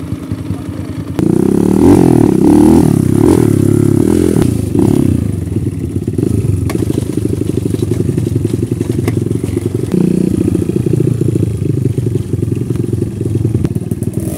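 Dirt bike engine idling, then, after a sudden jump in loudness about a second in, revving up and down as the bike is ridden along a rough forest trail. It settles into steady running with another rev near the end and a few sharp knocks from the bike over the ground.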